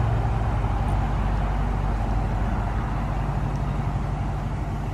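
A steady low motor drone with a fast, even flutter.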